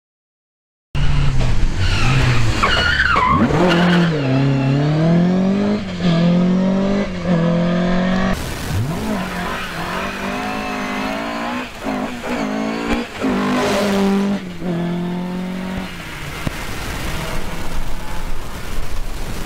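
Ford Escort Mk2 rally car driven hard, starting about a second in: the engine revs up and drops again many times through gear changes and lifts, with a short tyre squeal near the start. After about sixteen seconds the engine note fades as the car pulls away.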